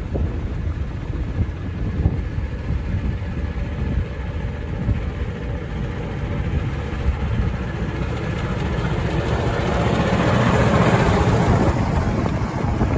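Miniature-railway locomotive, a diesel engine inside an E2 tank-engine body shell, running as it hauls a passenger train. It grows louder as it comes close and passes by about ten to twelve seconds in.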